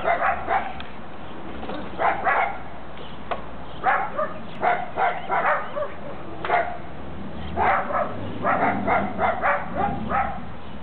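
A dog barking over and over, in short groups of barks a second or two apart.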